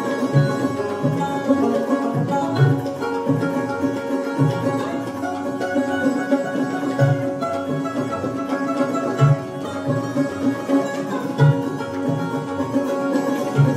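Sitar and sarod playing together in Hindustani classical style: plucked melody notes over steady ringing drone strings.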